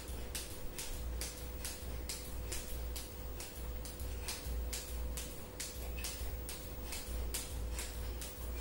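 Skipping rope hitting the floor on each turn, in a steady rhythm of about three strikes a second with no break.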